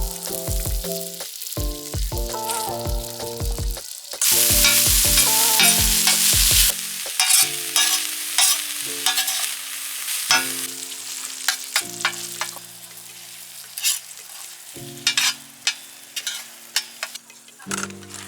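Food frying and sizzling in a pan, with the clatter of a utensil stirring and tapping. The sizzle is loudest about four to seven seconds in. Background music plays throughout, with a steady beat in the first half and held chords after.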